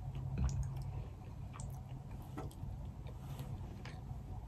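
Faint, scattered small clicks of boiled crawfish shells being handled on a plate, over a steady low hum.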